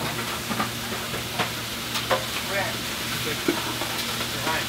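Food sizzling on a flat-top griddle, with a metal spatula scraping and tapping against the hot plate several times. A steady low hum runs underneath.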